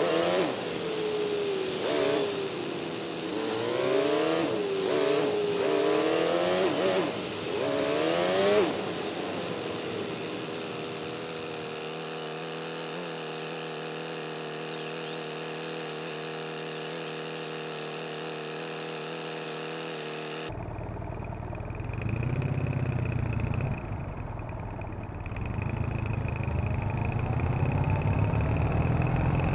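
Triumph Bonneville parallel-twin engine under the rider. It revs up and down through the gears for the first eight seconds or so, settles into a steady idle for about twelve seconds, then changes abruptly to a low rumble that rises in pitch as the bike pulls away again.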